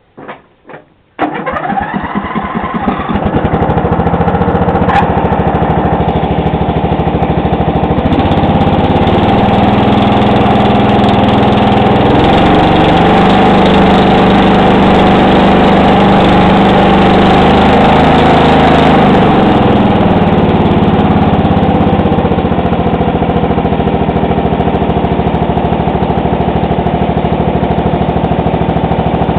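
Toro 16-44 HXL ride-on mower's Briggs & Stratton engine cold-started without choke. After a few clicks it catches about a second in and runs steadily. The revs rise several seconds later and settle back down after about twenty seconds of running.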